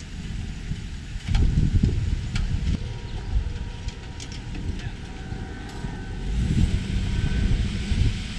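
Pickup truck engine running as it pulls the empty boat trailer up the launch ramp, with an uneven low rumble that swells about a second in and a few light clicks and knocks.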